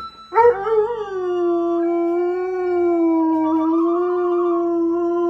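A dog howling: one long howl that wavers at the start and then holds at a steady pitch.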